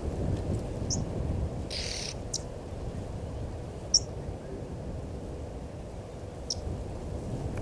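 Single short, high bird chirps every second or two, one of them sharper and louder about four seconds in, over a steady low rumble. A brief hiss sounds just before two seconds.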